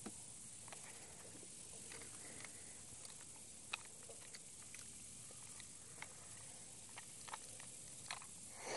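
Quiet boat ambience: faint scattered clicks and taps of handling, with one sharper click about four seconds in and a brief rustle near the end, over a low steady hiss.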